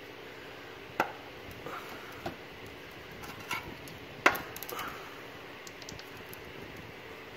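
A handful of short, light knocks and clicks, about five in all, the sharpest about four seconds in, over a steady faint background hum.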